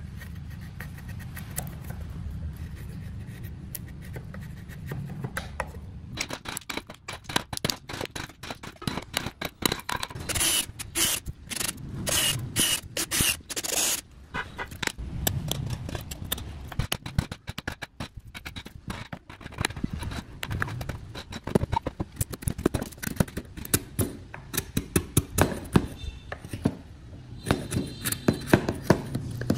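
Hand woodworking tools working wood: a long run of short scraping and rubbing strokes with clicks. They start about six seconds in and are densest and harshest a few seconds later.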